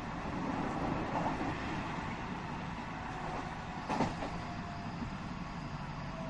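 Interior running sound of a JR 207 series 1000-subseries electric commuter train car at speed: a steady rumble of wheels on rail, with a single sharp knock about four seconds in.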